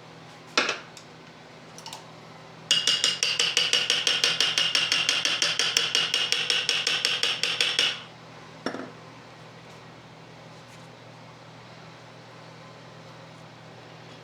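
A rapid, very even run of sharp metallic clicks, about ten a second for some five seconds, from a metal tool being worked on the shock parts. A single knock comes just before it and another just after.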